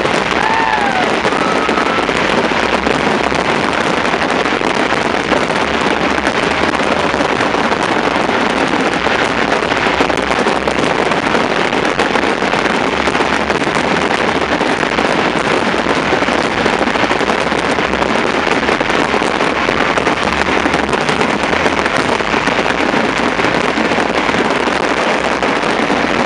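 Fireworks display at full intensity: a dense, unbroken barrage of bursts and crackling that merges into one steady din, with no single bang standing out. A couple of short falling whistles sound in the first second.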